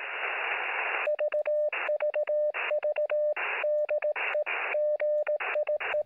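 Radio static hissing, then from about a second in a Morse code (CW) signal keyed as a steady beeping tone in dots and dashes. The static comes back in the longer gaps between characters.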